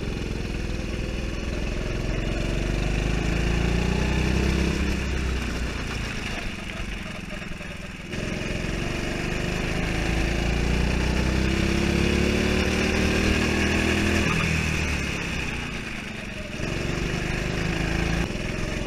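Go-kart engine heard from on board the kart, revving up with its pitch climbing over a few seconds and then dropping away as it comes off the throttle, twice.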